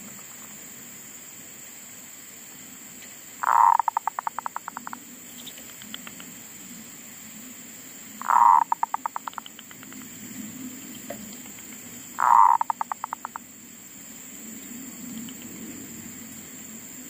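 Zebra dove (perkutut) cooing its song three times, each phrase a loud opening coo followed by a fast run of short staccato notes that fade out.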